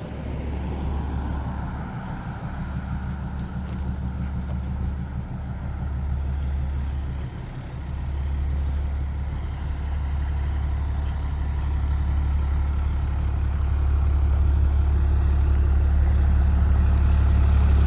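Fire engine's diesel engine idling with a steady low rumble that grows louder toward the end.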